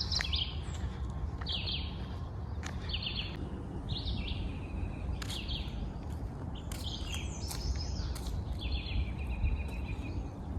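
Songbirds singing: short chirping phrases repeated every second or so, over a steady low rumble.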